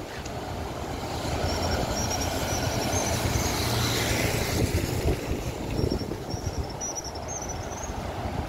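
Airbus A330 airliner on final approach, its jet engines giving a steady rumble that swells to its loudest about four seconds in, with a whine that drops in pitch as it passes. Faint high chirps sound before and after the loudest part.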